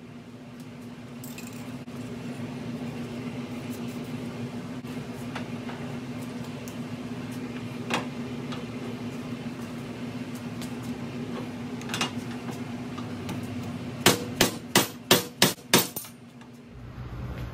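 Hammer blows on a socket reducer used as a drift, driving a stuck handlebar bushing out of a 1968 Triumph T120R top triple clamp. There are a couple of single strikes, then about seven quick blows in a row near the end, over a steady hum.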